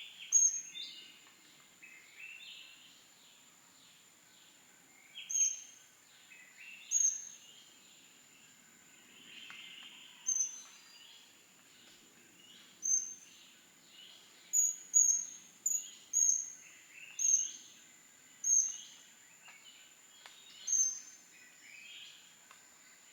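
Birds calling: about a dozen short, sharp, high-pitched notes at irregular intervals, closest together about two-thirds of the way through, over a faint steady high-pitched tone.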